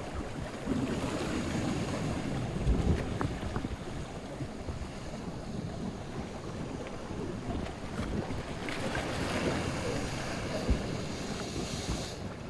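Ocean waves with wind buffeting the microphone, a low rumble throughout. A brighter hiss of water swells up about two-thirds of the way through and stops abruptly shortly before the end.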